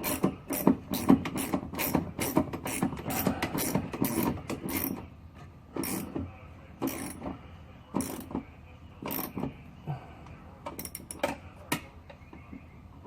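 Hand ratchet wrench clicking as it is worked back and forth on a bolt: a quick run of clicks for the first five seconds or so, then slower, spaced clicks.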